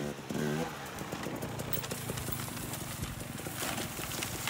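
Dirt bike engine running with a rapid putting beat, briefly changing pitch early on, then a clatter near the end as the bike crashes into the brush.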